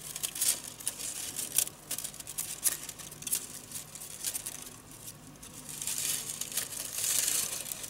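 Thin split-bamboo strips rustling, ticking and clicking against each other as they are woven by hand, with a denser, louder scraping rustle near the end.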